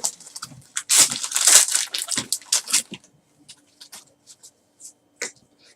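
A trading-card pack wrapper being torn open and crinkled, a dense burst of crinkling for about two seconds, followed by a few light clicks and rustles as the cards are handled.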